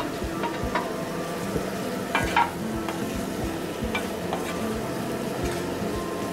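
Boiled potato cubes tipped from a steel bowl into a kadai of frying onion-tomato masala, then stirred with a wooden spatula: scattered scrapes and knocks against the pan over a steady low sizzle, the loudest knocks about two seconds in.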